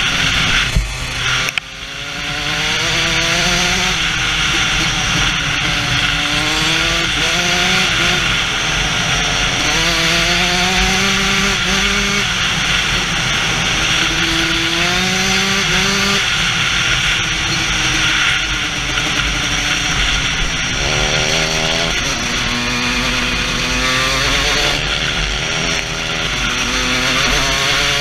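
Dirt bike engine heard from the rider's helmet camera, its pitch climbing and dropping back again and again as the rider opens the throttle, shifts and rolls off. A steady rush of wind noise on the microphone runs under it, and the engine briefly cuts back about a second and a half in.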